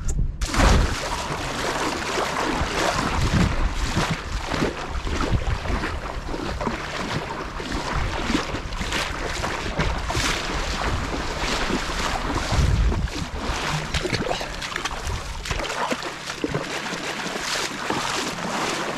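Shallow seawater splashing and sloshing around someone wading, with wind noise on the microphone.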